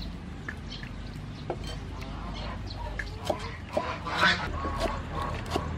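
Cleaver chopping green onions on a thick wooden chopping block: irregular knocks, more frequent in the second half. Chickens cluck in the background.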